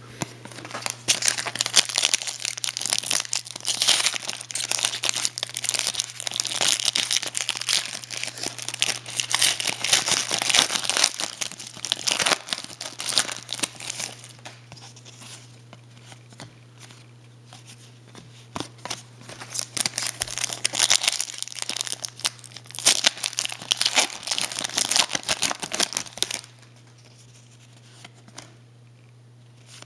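Plastic wrapper of a 2009 Upper Deck Champs hockey card pack crinkling and tearing as it is ripped open by hand. The crackling comes in two long bouts, the second starting about two-thirds of the way in, and stops a few seconds before the end.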